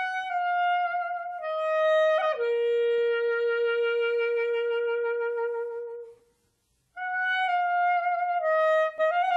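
Background music: a solo wind instrument playing a slow melody, a few falling notes and then a long held note that fades away about six seconds in. After a short pause the same phrase starts again.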